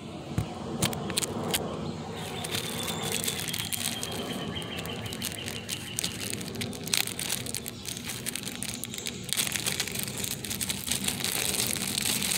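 Rustling and crinkling with scattered sharp clicks: hands working a rubber O-ring onto a water pump, with the phone rubbing against hands and part close to the microphone.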